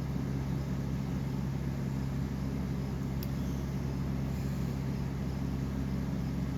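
A steady low mechanical hum, even in level throughout, with no other sound standing out.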